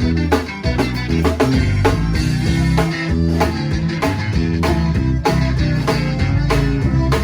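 Live conjunto band playing an instrumental passage without vocals: plucked guitar strings over bass and a steady drum beat.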